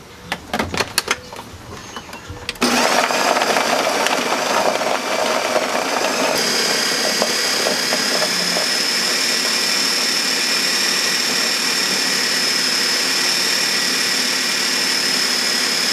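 Countertop blender running steadily, puréeing kale, basil, walnuts, garlic, cheese and olive oil into pesto; it starts up about three seconds in, and a high steady whine joins a few seconds later. Before it starts, a few knocks and clicks as the lid is put on.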